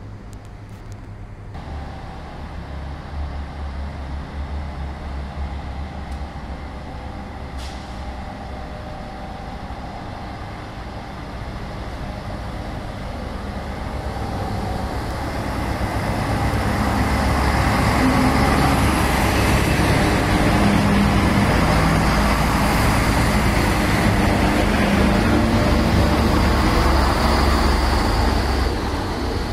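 SNCF X 73500 diesel railcar running on the track beside the platform, its engine rumble growing louder from about the middle and staying loud until near the end as it comes close.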